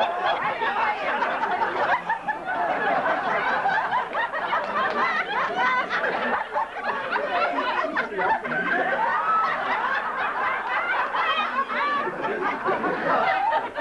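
Audience laughing, with many voices overlapping.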